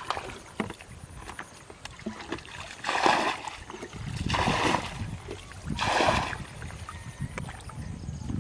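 Black plastic bucket bailing muddy water from a shallow ditch: three splashes of thrown water, about a second and a half apart.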